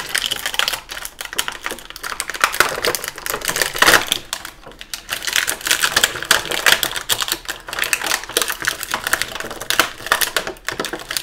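Stiff plastic action-figure packaging clicking and crackling in a fast, irregular run as an accessory hand is worked free of its plastic tray.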